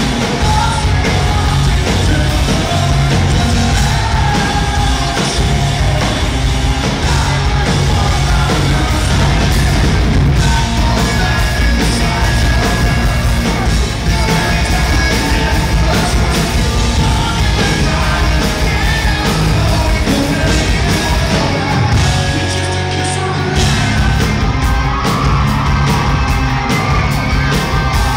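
Live rock band playing at full volume, electric guitar, bass and drums, with a male lead singer.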